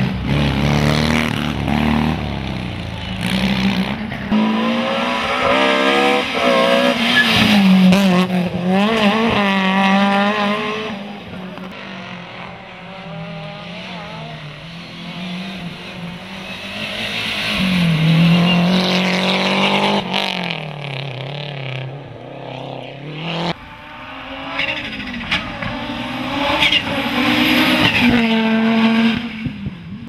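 Rally car engines revving hard through gear changes as several cars pass one after another, the pitch climbing and dropping with each shift.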